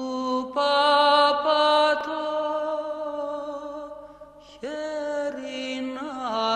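Slow, chant-like background music of long held notes, with a short lull about four seconds in before the next note slides up into place.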